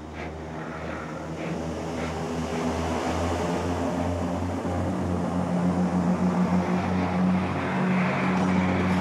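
Engine of a small railcar drawing closer: a steady drone with a slight pulse that grows steadily louder.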